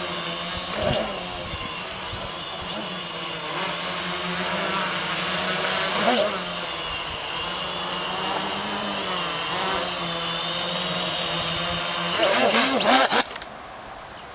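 MultiWii QuadX quadcopter's four motors and propellers buzzing in a hover, with brief surges in pitch as the craft wobbles. Near the end the pitch swings rapidly up and down as the oscillation in stability mode escalates, then the motors cut out suddenly as the quadcopter drops into the grass.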